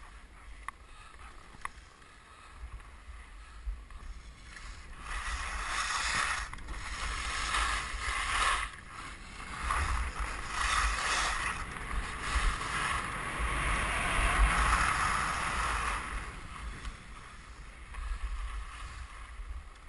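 Skis sliding and scraping over packed snow, louder and hissing from about five seconds in until about sixteen seconds, then easing off as the skier slows. Wind rumbles on the microphone.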